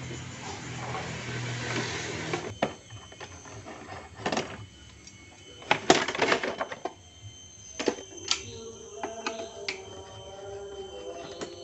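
Screwdriver and hands working loose the plastic body panels of a Yamaha Vega ZR motorcycle: rustling at first, then a handful of sharp plastic clicks and knocks, the loudest about six seconds in. Faint steady tones join near the end.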